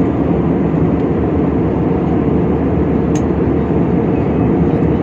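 Airliner cabin noise in flight: the steady, deep drone of the engines and rushing air, unchanging throughout, with a faint click about three seconds in.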